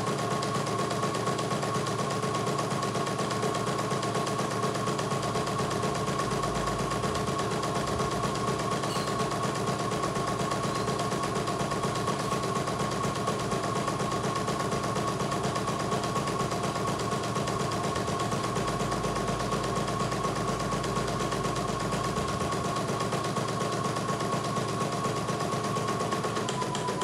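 CNY E900 computerized embroidery machine stitching a design: a fast, steady clatter of needle strokes as the hoop carriage shifts the fabric, with a steady high whine running under it.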